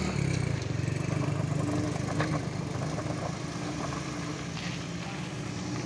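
Compact MPV's engine running steadily at low revs as it crawls over a rough gravel road, its hum easing a little towards the end, with a few short knocks from the wheels on the stones.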